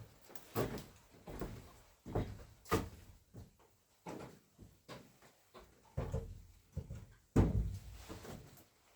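A series of irregular knocks and thuds, as of things being handled, moved and set down in a small room, with a heavier thud about seven and a half seconds in.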